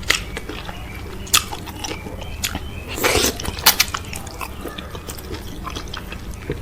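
Close-miked eating sounds from a meal of okra soup with cow foot and fufu: sharp, irregularly spaced bites and wet mouth smacks, with a longer wet sound about three seconds in.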